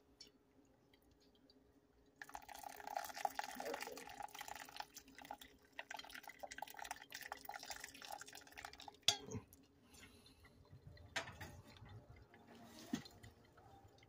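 Water poured from a kettle onto coffee grounds in a drip coffee maker's filter basket, done by hand because the machine no longer brews. The pour starts about two seconds in and runs steadily to about nine seconds in, where there is a sharp click, then fades to a fainter trickle.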